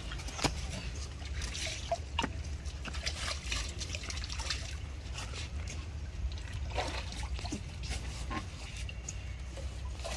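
Pond water splashing and trickling as a young monkey swims and ducks its head under, with many small, scattered splashes and drips.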